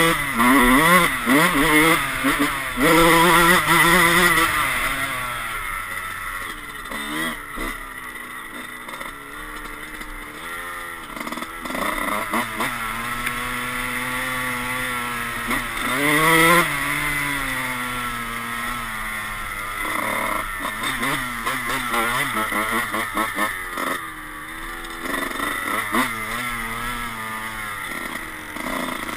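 Dirt bike engine heard from on the bike while riding, its pitch climbing again and again as the throttle is opened and dropping between gears. It is loudest in the first few seconds and again about halfway through.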